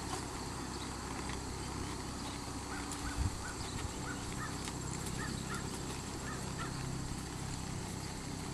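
Faint hoofbeats of a ridden Quarter Horse gelding moving on a soft, dusty dirt track, under steady outdoor noise, with a dull thump about three seconds in. A bird calls in a run of short chirps through the middle.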